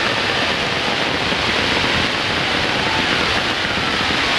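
Fireworks going off as a dense, steady rush of noise, with no separate bangs standing out.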